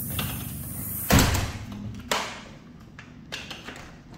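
A back door slamming shut about a second in, followed by a lighter knock about a second later.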